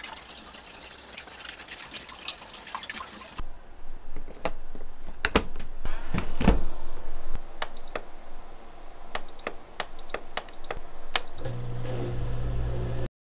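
Kitchen sounds: a tap runs briefly, then knocks and clatter of kitchenware, followed by a run of about nine short, high electronic beeps from an appliance's touch controls and a steady low electrical hum that starts near the end and cuts off suddenly.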